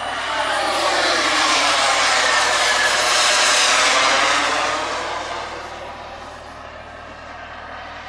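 Jetsmunt TS-166 turbine of a Feibo Viper RC jet flying past: a high turbine whine over a rushing jet noise. It swells to its loudest about three to four seconds in, the whine rising and then falling in pitch, and fades as the jet moves away.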